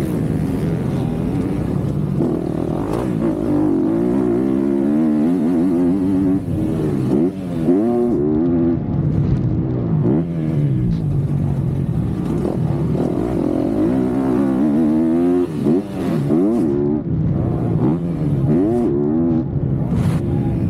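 MX2 motocross bike engine revving hard under racing load, its pitch climbing and dropping over and over as the throttle opens and closes through corners and straights, heard from the rider's helmet.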